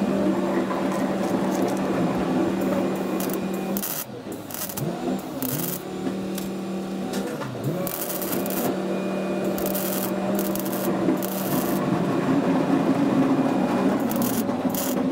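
MIG welder tacking a steel patch panel into a truck wing: short crackling arc bursts, many in a row at irregular intervals, over a steady low hum.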